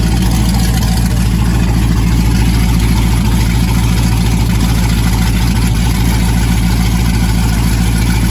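Jeep Grand Cherokee Trackhawk's Whipple-supercharged 6.2-litre Hemi V8 idling steadily, loud and close.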